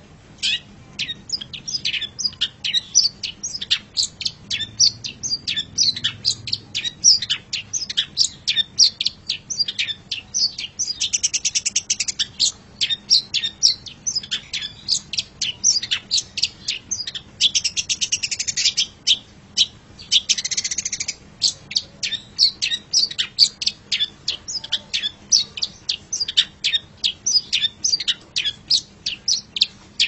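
Long-tailed shrike (cendet) singing: an unbroken run of short, sharp chirps, several a second, broken three times by a fast rattling trill.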